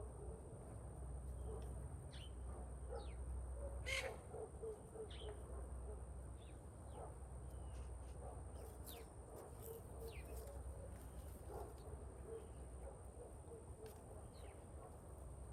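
Faint bird chirps and calls over a low steady rumble, with one sharp click about four seconds in.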